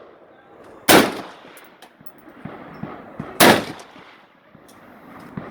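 Two AR-15 rifle shots about two and a half seconds apart, each a sharp crack with a short trailing echo.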